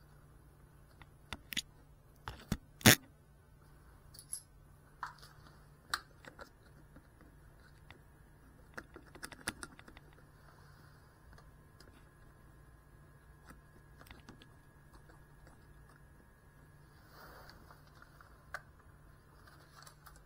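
Irregular sharp clicks and taps over a faint steady hum, with one loud knock about three seconds in and a small flurry of clicks around nine to ten seconds.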